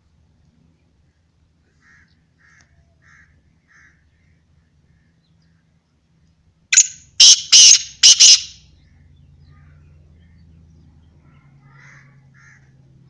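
Black francolin calling: a loud, harsh, grating call of four rapid notes about seven seconds in, after a few faint short chirps.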